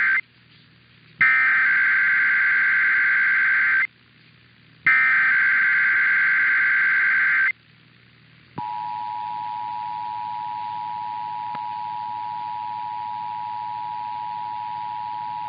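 Emergency Alert System SAME header: the last moment of one burst of rapid digital data tones, then two more bursts of about two and a half seconds each with a second's pause between them. About eight and a half seconds in, the steady two-tone EAS attention signal starts and holds, marking the start of a Nevada State Police required monthly test.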